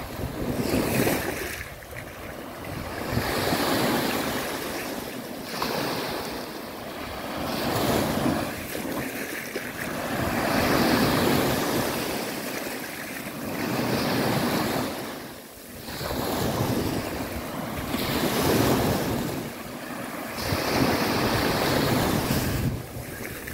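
Small waves breaking and washing up over a sandy shore, the surf swelling and fading every two to three seconds.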